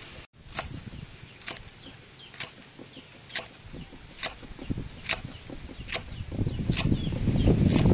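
A cleaver slicing a bundle of fresh leaves into strips on a wooden chopping board, the blade striking the board in an even rhythm about once a second. A louder low noise builds in near the end.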